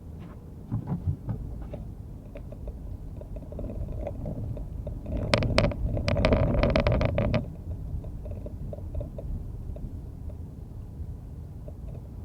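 Steady low road rumble heard inside a car driving on a snowy road in a blizzard. A few sharp clicks come about a second in, and for about two and a half seconds in the middle the noise grows louder with a rattle of rapid clicks before settling back.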